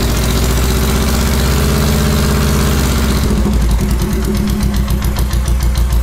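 Engine on a test stand running steadily, then a little faster and more unevenly from about halfway through.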